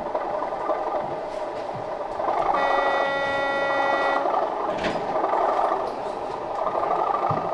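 Sound-fitted OO gauge Class 37 diesel model locomotive running, its onboard speaker playing a steady diesel engine sound. Its horn sounds one held note of about a second and a half near the middle, and a sharp click follows soon after.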